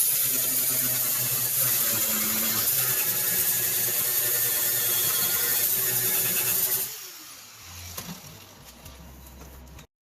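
A power grinder or cut-off tool working sheet metal, loud and harsh, for about seven seconds, then released and spinning down with a falling whine.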